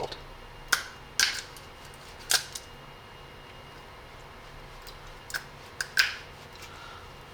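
Half a dozen sharp, irregular clicks and taps of small hand tools and parts being worked on a polymer airsoft lower receiver, the loudest about a second in and near the end.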